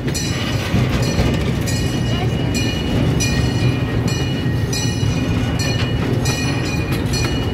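Miniature passenger train running along its track, with a steady rumble of wheels on the rails and a steady high whine over it.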